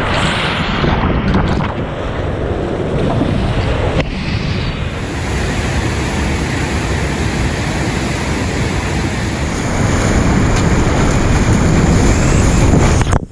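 Whitewater and a waterfall rushing, picked up by action-camera microphones with wind buffeting them. The sound shifts abruptly about four seconds in and drops out for a moment near the end.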